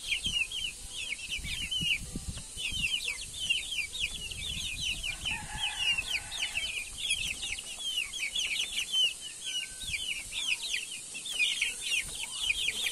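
A flock of young Rhode Island Red chicks peeping without pause: many short, high, mostly falling chirps overlapping one another.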